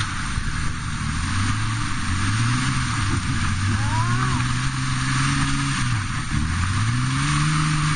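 Toyota LandCruiser four-wheel drive's engine working under load as it crawls up a steep rocky, rutted climb. The revs rise about two and a half seconds in, drop back briefly about six seconds in, then rise again.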